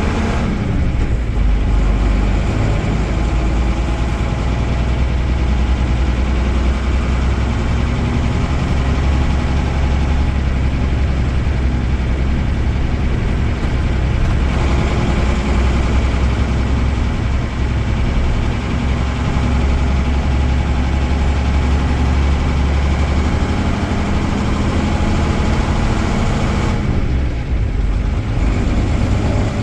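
Mercedes-Benz OM-366A six-cylinder turbo diesel of an OF-1318 bus chassis running steadily, its pitch dropping a little near the start and shifting again near the end.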